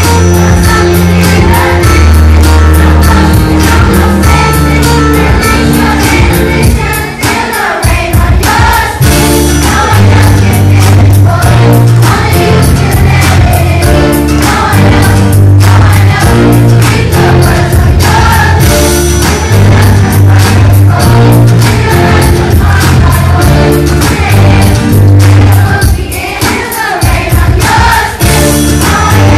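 Children's choir singing together over a loud accompaniment with a heavy bass line and a steady beat.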